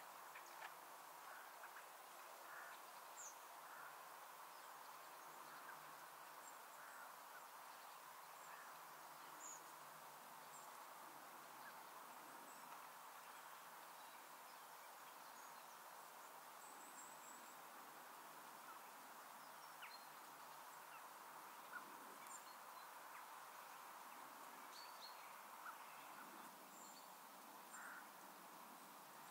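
Faint countryside ambience: a steady soft hiss with scattered short, high bird chirps.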